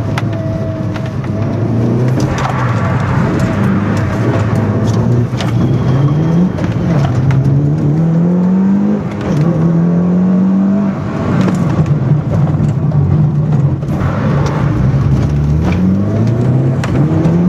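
Mitsubishi Lancer Evolution rally car's turbocharged four-cylinder engine heard from inside the cabin under hard acceleration, climbing in pitch and dropping back sharply at each upshift, several times over. Occasional sharp clicks come through over the engine.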